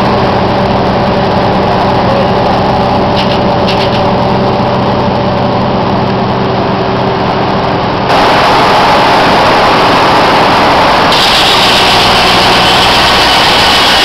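Circular sawmill running: its belt-driven power unit and big spinning blade drone steadily. About eight seconds in the sound changes abruptly to louder, noisier machine sound, with more high hiss joining about three seconds later.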